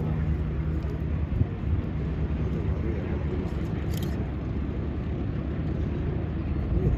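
Boeing 747-400 jet rolling slowly along the runway at a distance, its four engines at low thrust giving a steady low rumble with a faint hum.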